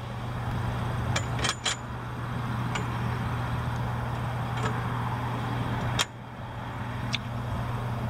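Several light metallic clicks as the locking pin and lock are fitted at the end of a stainless steel bar across a bus door. Under them runs a steady low engine-like rumble that drops off sharply about six seconds in.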